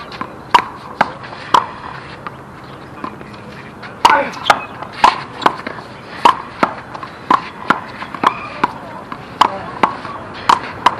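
One-wall handball rally: a rubber handball slapped by bare hands and smacking off the concrete wall in sharp, separate hits about two a second, with a quieter stretch about two to four seconds in.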